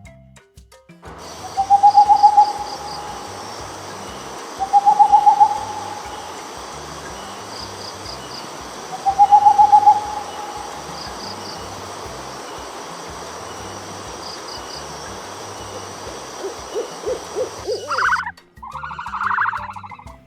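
Owl hooting three times, each hoot about a second long and quavering, over a steady background hiss. Near the end a run of low pulses and then a louder, different pulsed call take over.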